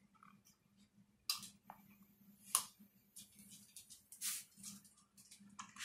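A toddler drinking from a plastic cup: a few faint, short sips and mouth clicks, about a second and a half, two and a half, and four seconds in.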